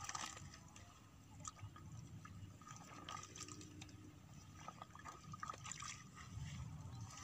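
Faint splashing and squelching of hands in shallow muddy water and wet grass, with scattered small drips and slaps.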